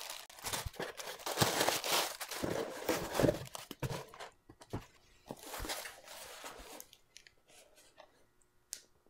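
Plastic air-pillow packing crinkling and cardboard boxes scraping and bumping as the packed product box is taken out of its shipping carton. It is busy for the first few seconds, then thins to a few scattered rustles and a small click near the end.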